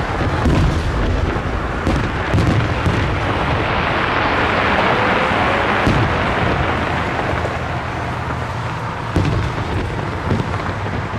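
Fireworks display: a steady run of booms and sharp bangs with rumbling, and a hissing crackle that swells in the middle.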